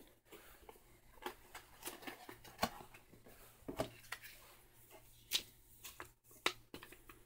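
Hands handling a cardboard LEGO box, plastic parts bags and a paper instruction booklet on a wooden table: soft rustling broken by scattered sharp taps and knocks as items are picked up and set down.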